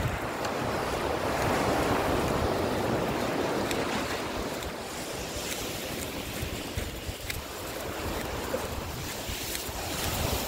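Sea surf washing up the beach, with wind buffeting the microphone; the rush of water is strongest in the first few seconds and then eases off.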